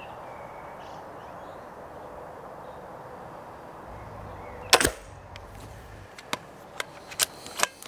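A single sharp crack as the PCP air rifle is fired, then several quick metallic clicks as the bolt is cycled to chamber the next pellet.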